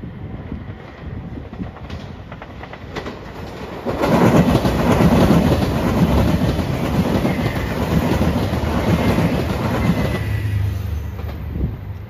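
JR Shikoku 2700 series diesel limited express train passing close by at speed, its wheels running over the rails. The sound builds sharply about four seconds in and fades near the end.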